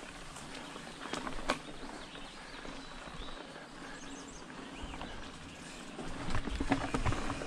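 Mountain bike rolling along a dirt singletrack, with tyre noise over dirt and dry leaves and the clicks and rattles of the bike over bumps. It gets louder and busier about six seconds in.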